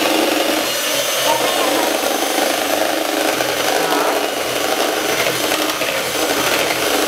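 Electric hand mixer running steadily, its beaters whipping cream in a glass bowl.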